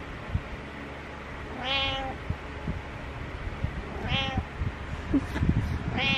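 Domestic cat meowing three times, short calls about two seconds apart, the last starting just before the end. Soft low bumps and rustling come between the meows.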